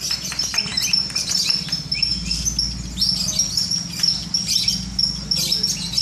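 Many caged lovebirds chirping at once: a dense, shrill, rapid chatter of overlapping high chirps.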